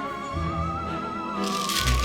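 Background music: a wavering, whistle-like lead melody over a pulsing bass line, with a brighter, hissy texture coming in about one and a half seconds in.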